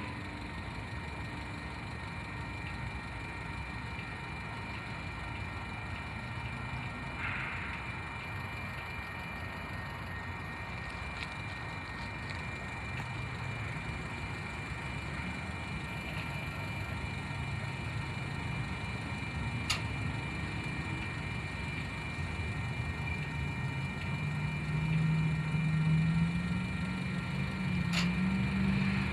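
Freight train of covered grain hopper cars rolling slowly past, a steady low rumble with a couple of sharp knocks. In the last few seconds a low droning hum rises and grows louder.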